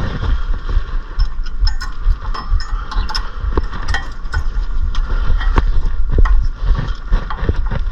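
Scattered light clicks and taps of brake parts and tools being handled, over a steady low rumble.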